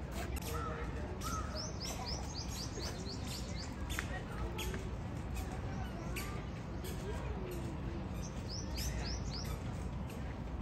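Birds chirping: a quick run of about eight short, high, falling notes a couple of seconds in, and a shorter run of about four near the end, over a steady low rumble.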